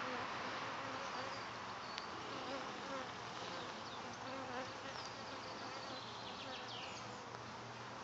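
Honey bees from a newly hived swarm buzzing around the hive entrance: a wavering hum as individual bees fly past, over a steady hiss.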